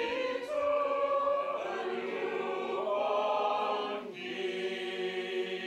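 Mixed choir of men's and women's voices singing held chords, moving to a new chord about four seconds in.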